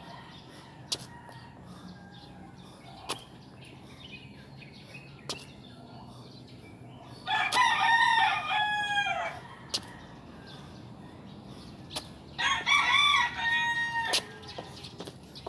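A rooster crows twice, each crow about two seconds long, the second beginning about three seconds after the first ends. Short sharp clicks sound about every two seconds underneath.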